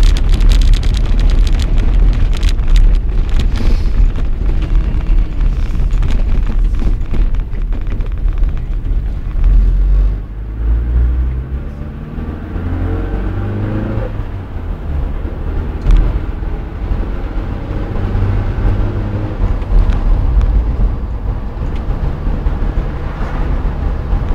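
Vehicle engine and road noise while driving. There is rough noise like wind on the microphone in the first few seconds. About halfway through, the engine note rises as it accelerates, then drops back to a steady run.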